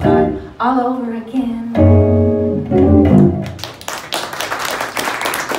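A jazz trio of female voice, archtop guitar and upright bass plays the closing notes of a song, held notes over a low bass line. About two-thirds of the way through the music ends and audience applause takes over.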